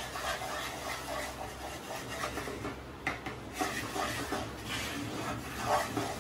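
Wooden spatula scraping and stirring a thick butter-and-flour roux around a non-stick frying pan in irregular strokes, the roux stage of a white sauce before the milk goes in.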